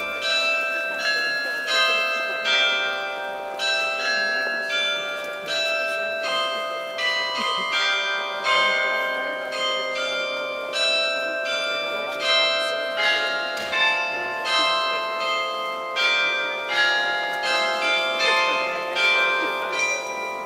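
A peal of several church bells ringing from a stone church tower, struck one after another a few times a second, their overlapping tones ringing on at several pitches.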